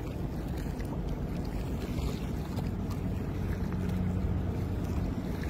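Steady low drone of a boat engine running, with wind noise on the microphone.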